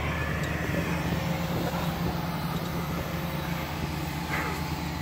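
John Deere 200 excavator's diesel engine running steadily.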